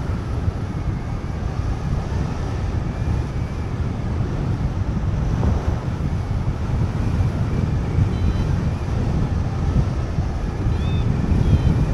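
Steady rush of air across the microphone during paraglider flight. A few faint, short, high chirps come in near the end.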